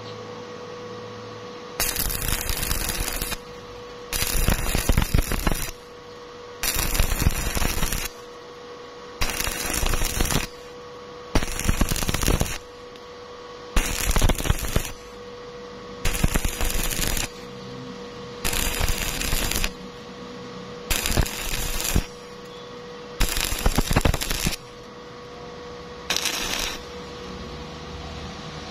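Stick (shielded metal arc) welding of a lap joint between two thin reinforcing bars: the electrode's arc crackles in eleven bursts of a second or so, about two seconds apart, with the arc broken off between bursts.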